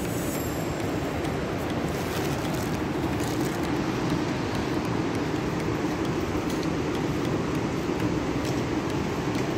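Steady rushing noise of a fast-flowing mountain river and waterfall, an even wash of sound with no breaks.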